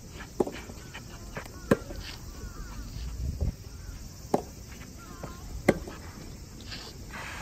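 Soft tennis rackets striking the soft rubber ball during a rally: sharp pops about every one to two seconds, four of them loud. Faint chirps sound between the hits.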